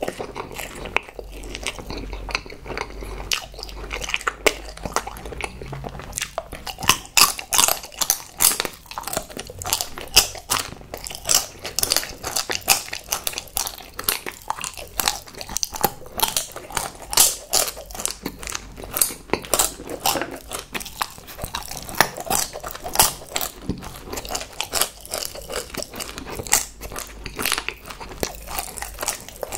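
Close-miked chewing of cone-shaped chocolates, with a dense, irregular run of crisp crunching clicks and wet mouth sounds that get busier from about six seconds in.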